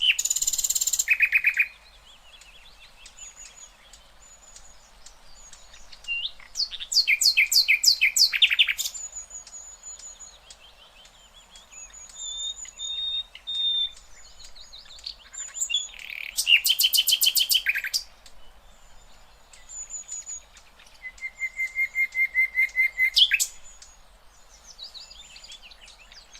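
Songbirds singing in short phrases a few seconds apart: rapid trills and runs of quick, high repeated notes, with quieter calls in the gaps.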